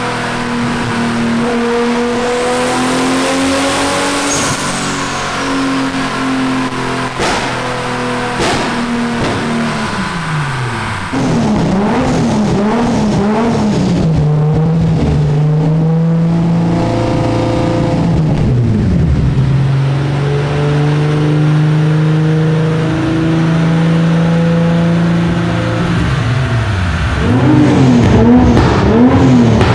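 Big-single-turbo Toyota 2JZ-GTE inline-six running hard on a chassis dyno. Its exhaust note is held at steady revs for stretches, drops in pitch about ten seconds in, and in between rises and falls in quick wobbles, getting louder near the end.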